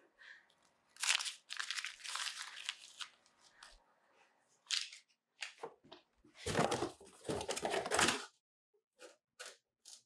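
Cardboard box and its contents being handled: irregular bursts of paper and cardboard rustling and scraping. The loudest stretch comes about two-thirds of the way through, with deeper bumps, followed by a few short taps.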